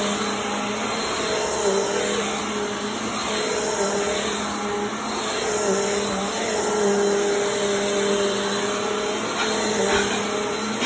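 Vacuum cleaner running steadily: an even whooshing hiss with a motor hum whose pitch wavers slightly.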